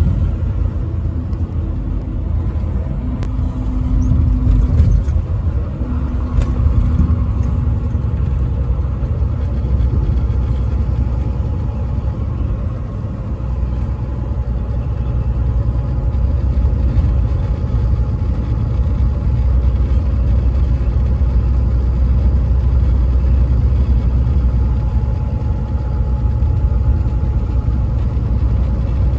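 A truck driving at highway speed: a steady, low rumble of engine and road noise.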